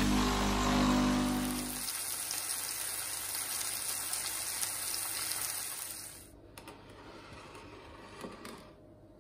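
Fish frying in hot oil in a frying pan, a steady sizzle that stops about six seconds in, leaving a few faint knocks. A low steady hum sits under the sizzle for the first couple of seconds.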